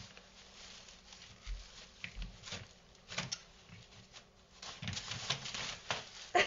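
Crumpled white bag rustling and crinkling in bursts as a puppy tugs at it with its mouth, with a few light clicks.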